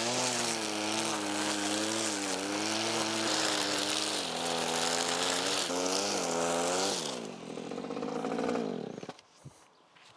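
Small petrol engine of a garden power tool running at high revs, its pitch dipping and climbing again, then dropping to a lower note about seven seconds in and stopping about nine seconds in.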